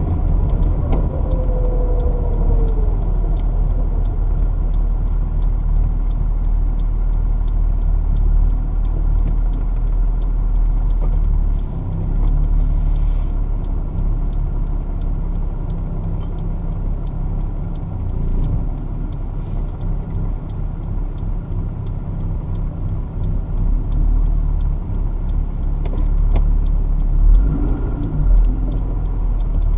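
Toyota 2GR-FE 3.5-litre V6 in a mid-engine MR2, heard from inside the cabin: the car coasts down to a stop with the sound falling in the first couple of seconds, then the engine idles steadily. It picks up slightly near the end.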